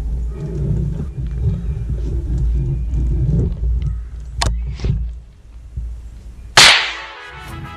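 A low rumble, then one sharp, very loud crack of a Marlin bolt-action .22 LR rifle firing about two-thirds of the way through, ringing out briefly: the shot that drops a squirrel.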